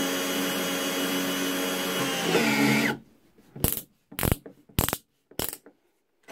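Einhell TE-CD 18/40 Li cordless drill-driver running with no load at a steady speed, then slowing and stopping about three seconds in. Four sharp clicks follow, about half a second apart, as its torque-setting collar is turned.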